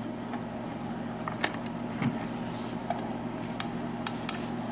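Lock picks and a pin-tumbler lock being handled, making scattered small metallic clicks and clinks, over a steady low hum.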